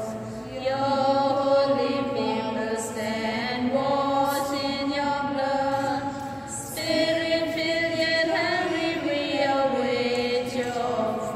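A slow hymn sung by voices, long held notes in phrases of several seconds with short breaks between them.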